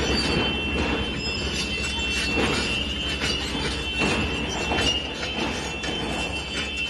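Heavy construction machine working at a building demolition: a steady engine rumble under a continuous high metallic squeal, with irregular knocks and crackles of breaking concrete and debris.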